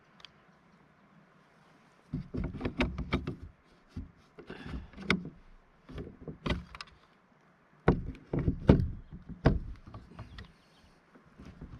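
Hollow knocks and clunks on a plastic Lifetime Manta kayak hull as it is paddled, coming in bunches every second or two.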